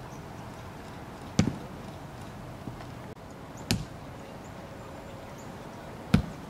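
Footballs kicked on a turf field: three sharp thumps of boot on ball, about two and a half seconds apart, over a steady open-air background hiss.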